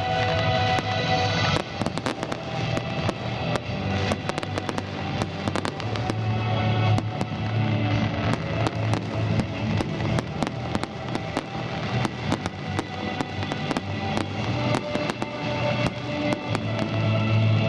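Fireworks display: a dense run of bangs and crackles going off throughout, over loud music.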